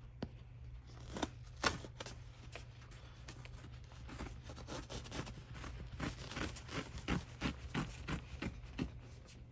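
Quilted mattress cover fabric and its cotton padding being ripped and pulled apart by hand: a run of short sharp rips and crackles, thickening into a longer tearing hiss about six seconds in. A steady low hum runs underneath.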